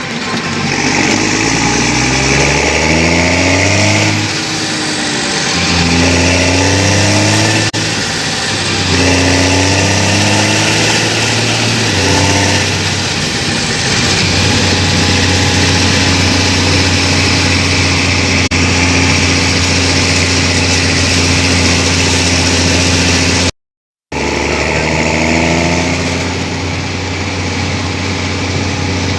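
New Holland T6070 tractor's diesel engine revved up and let fall back about four times, then held at high revs. The sound cuts out briefly, the engine climbs once more, and it holds steady again.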